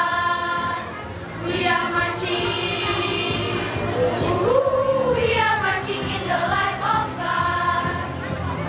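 Children's choir singing a Christmas song together, the voices dipping briefly about a second in before carrying on.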